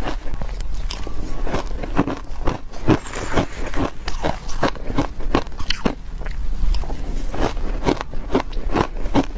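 Close-miked chewing of soft shaved ice dusted with powder. It is a steady run of soft crunches, about three or four a second.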